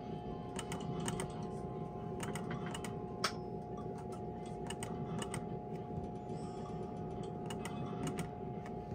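Skill game machine clicking as its reels are spun and stop: sharp ticks and clicks at irregular spacing, a few a second in clusters, with one louder click about three seconds in. A steady electronic hum runs underneath.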